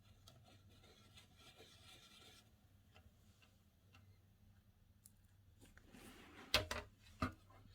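Faint, soft rubbing and scraping of slime being worked by hand with watercolour paint, then a few sharp clicks near the end.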